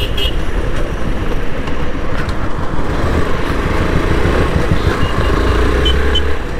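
Motorcycle riding in traffic: its engine running under steady wind and road rumble, with passing cars and motorcycles.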